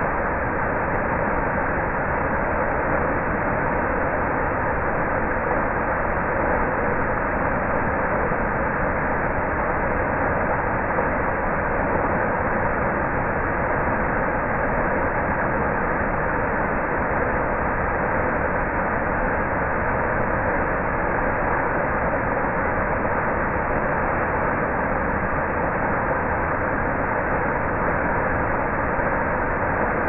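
Waterfall: a steady rush of water pouring over a rock ledge into the pool below.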